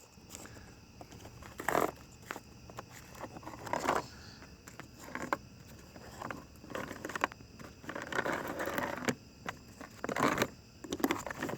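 Loose chainsaw chain handled by hand: irregular clicks, rattles and scrapes of the metal links as it is worked straight.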